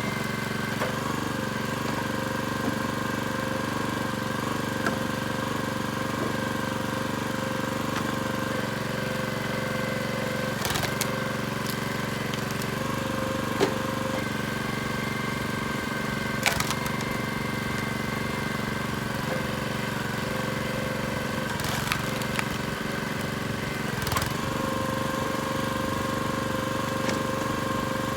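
Gas engine of a SplitFire 2265 log splitter running steadily, its tone shifting a few times as the hydraulics take load. About five sharp cracks of hickory splitting stand out over it.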